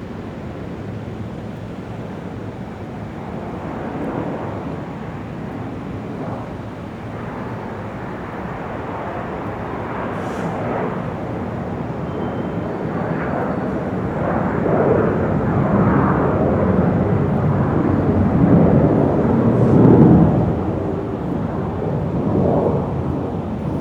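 Large airport exterior ambience: a steady rumble of aircraft and ground vehicles that swells gradually, loudest about twenty seconds in, then eases off.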